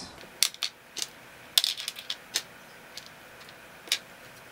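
Flat glass beads clicking against one another and against a whiteboard as they are slid along and set down by hand: about ten short, sharp clicks at irregular intervals.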